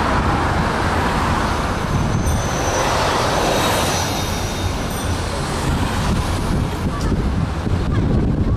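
Road traffic noise heard from a moving vehicle: a steady low rumble of engine and tyres with a hiss of passing traffic.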